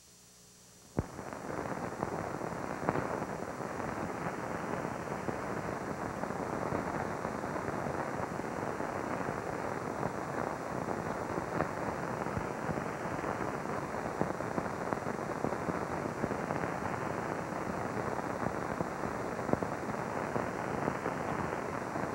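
Steady crackling hiss with scattered faint clicks, starting with a sharp click about a second in: the surface noise of an old film soundtrack with no commentary on it.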